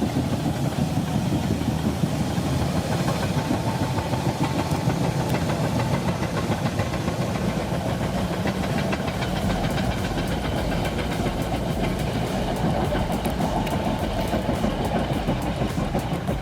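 Heavy machine's engine running steadily.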